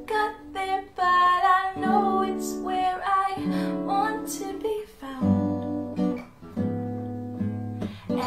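Acoustic guitar music, plucked and strummed chords with a melody line over it.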